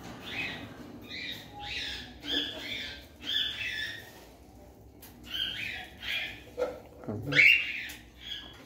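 Cockatiels calling: a string of short, repeated calls, about a dozen in all, the loudest about three-quarters of the way through.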